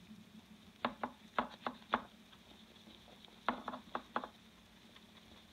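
Light knocks and clicks of a revolver frame being handled and rubbed with a cloth on a workbench while polish is wiped off. They come in two quick runs of four or five, about a second in and again about three and a half seconds in.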